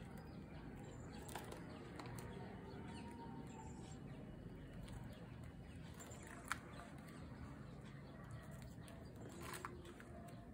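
Faint low background noise with a few short, soft clicks or taps, the sharpest about six and a half seconds in and more near the end.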